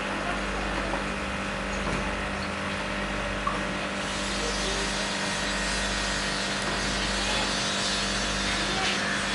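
Steady electrical hum with an even hiss from running aquarium equipment, with one faint tick about three and a half seconds in.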